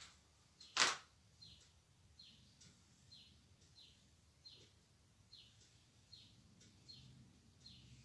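A bird chirping over and over, short faint chirps falling in pitch, one or two a second. A single sharp click about a second in.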